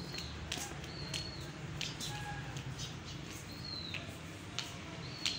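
A toddler's squeaky shoes squeaking with his steps: short high chirps, each held briefly and then dropping off, coming at uneven intervals, with light clicks of footfalls between them.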